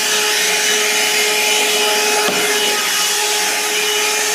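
Shark cordless 15.6-volt handheld vacuum running steadily with a constant motor whine as it cleans a stair with its brush. A brief knock comes about two seconds in, and the motor note dips for a moment.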